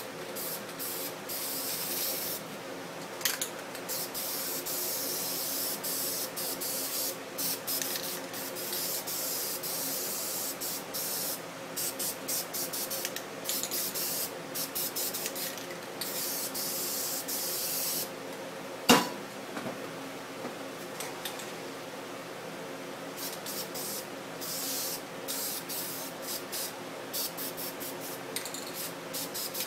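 Aerosol spray paint cans hissing in repeated bursts, a long stretch at first, then shorter choppy sprays, as paint is laid onto a spray-paint art painting. A single sharp knock, the loudest sound, comes about two-thirds of the way through, and a steady low hum runs underneath.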